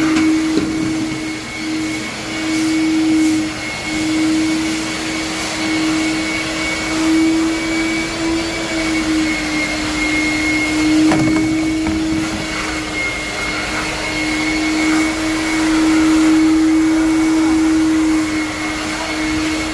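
Vacuum cleaner running steadily across a floor, its motor tone wavering slightly as it is pushed and pulled, with a brief knock partway through.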